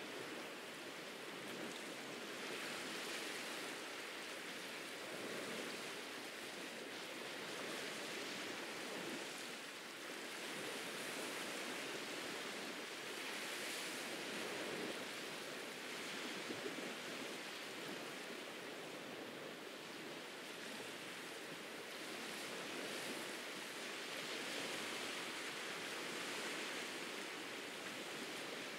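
Ocean waves washing onto a beach: a steady surf hiss that swells and eases every few seconds.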